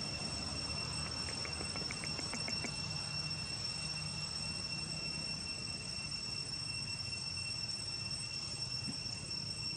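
Steady, high-pitched drone of insects, one unbroken held tone, over a low background rumble. About a second in, a quick run of seven or eight faint clicks.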